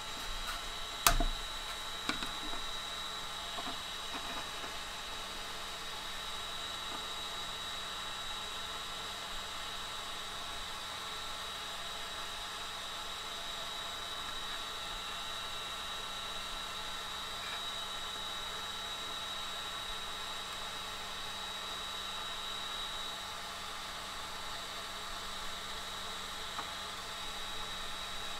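Steady hum and whine of a 3D printer's cooling fans running, with a high whining tone held throughout. A sharp knock about a second in and a lighter click about a second later.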